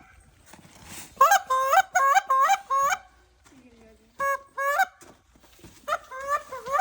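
Geese honking in short runs of quick, repeated calls: a burst of about five calls, a pause, two more, then another run near the end.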